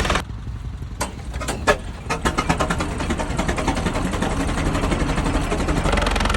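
Engine of a 1920 Minneapolis 22-44 gas tractor firing in sharp, separate exhaust beats that come faster and faster and settle into an even beat. A louder, fuller running sound rises near the end.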